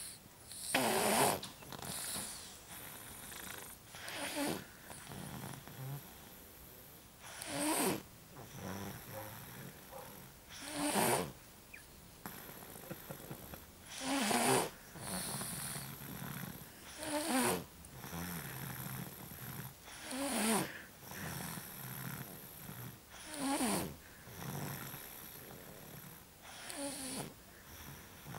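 A sleeping young child snoring in a steady rhythm: nine loud snores about three seconds apart, each followed by a softer breath.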